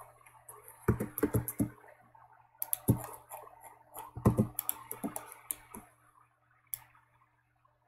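Irregular clicks and taps of a computer keyboard and mouse, a few with a dull low knock, dying away near the end.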